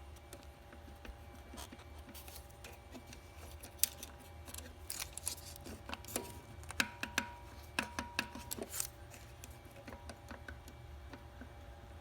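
Irregular light clicks and taps of the throttle body's shaft and linkage being worked back and forth by hand, over a faint steady hum. The shaft is being checked for play: smoke is leaking past it, a sign of a worn throttle shaft causing a vacuum leak.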